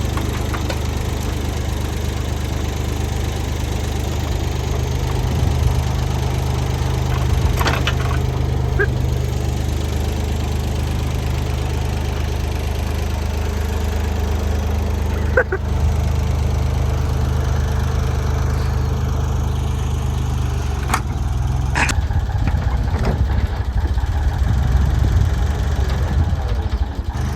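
Engine of a bucket loader or dozer running steadily, with a few sharp metallic clanks. The engine note turns rougher and more uneven in the last five seconds or so.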